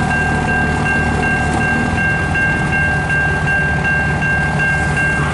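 CN freight train rolling very slowly past: a steady low rumble, with a steady high-pitched tone and a rapidly pulsing higher tone over it.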